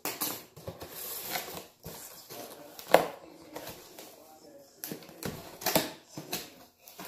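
Cardboard gift box being handled and opened: rustling and scraping of cardboard with irregular clicks and taps, the sharpest about three seconds in.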